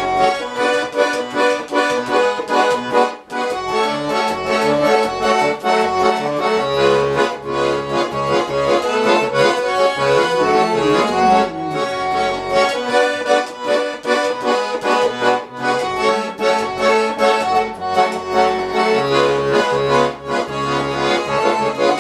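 Accordion playing an instrumental interlude of a cheerful song: a melody over a steady, rhythmic bass-and-chord accompaniment, with no singing.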